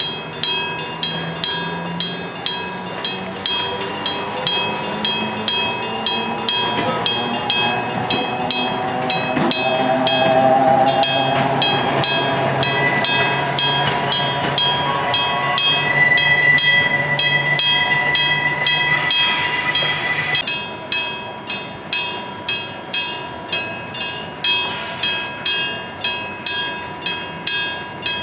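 Electric level-crossing bell striking steadily, about two strikes a second. Through the middle a train passes over the crossing, with a low rumble and a rising whine. A brief hiss follows, then the bell is heard clearly again.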